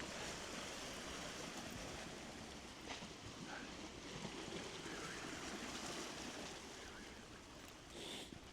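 Faint steady water noise, like small waves lapping, with a few soft ticks.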